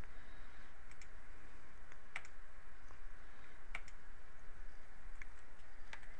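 Computer mouse button clicks: a handful of short single and double clicks, spaced about a second apart, as objects are selected and a menu command is chosen. They sit over a steady low hum and hiss from the recording.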